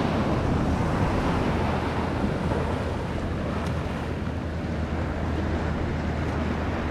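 Ocean surf washing steadily onto the beach, with wind blowing on the microphone.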